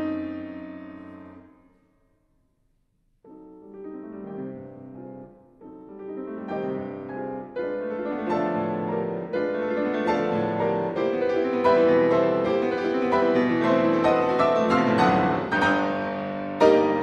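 Background piano music. One passage fades out, there is about a second of silence, and a new piece begins softly about three seconds in and grows louder.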